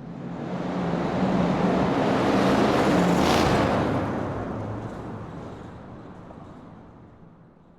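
Muscle car driving past: the engine grows louder as it approaches, passes closest about three seconds in with a brief rush of tyre and wind noise, and its note drops and fades away as it recedes.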